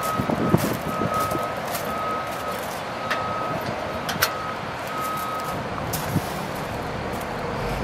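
Vehicle back-up alarm beeping about once a second, each beep held about half a second, stopping about two-thirds of the way through, over a steady engine rumble with a few sharp clicks.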